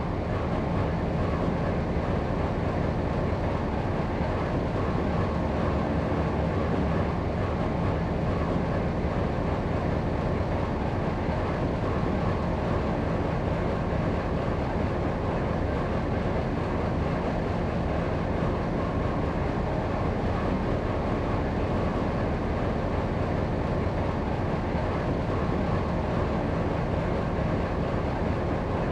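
The EMD 8-567CR two-stroke diesel engine of a T class diesel-electric locomotive idling, a steady, unchanging engine sound while the locomotive stands still.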